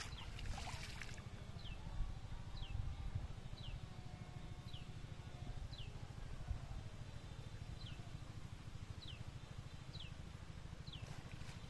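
Water splashing for about the first second as a net is drawn through shallow water, then a bird repeating a short, falling high note about once a second over a low steady rumble; another brief splash near the end.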